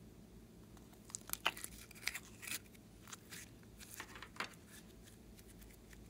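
Gold glitter slime being pulled out of a small plastic container by hand, with a run of short sticky clicks and crackles from about one to four and a half seconds in.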